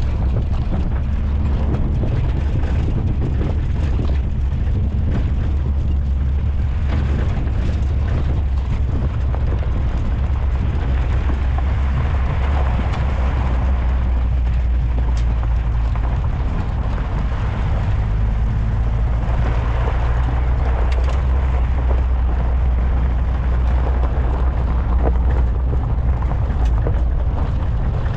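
Wind rumbling on a microphone mounted outside a moving VW Kombi van, over the steady drone of the van running along a dirt road.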